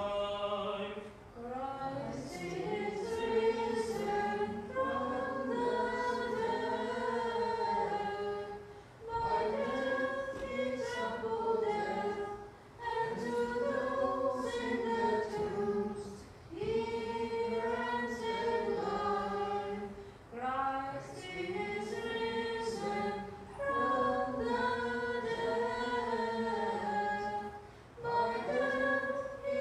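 Unaccompanied Byzantine liturgical chant, sung in phrases of a few seconds each with short pauses for breath between them.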